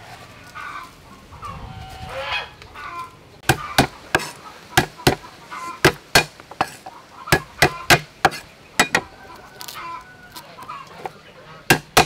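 A cleaver chopping garlic cloves on a round wooden chopping block, in sharp irregular knocks starting about three and a half seconds in. Before the chopping, and again between strokes, short pitched calls sound in the background.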